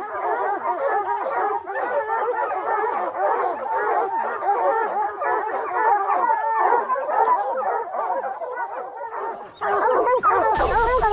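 A pack of bear hounds baying at a treed black bear: many dogs barking and bawling at once in overlapping calls, the steady chorus of hounds that have a bear treed. Near the end a sudden rush of noise hits the microphone.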